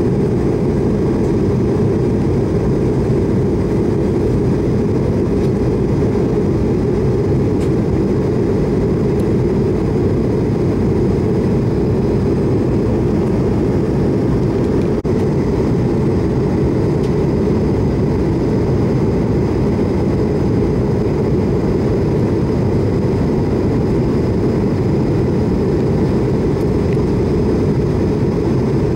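Steady in-flight cabin noise inside an Airbus A220-300 airliner: a constant low rush from its Pratt & Whitney PW1500G geared turbofan engines and the air streaming past, with faint steady tones above it.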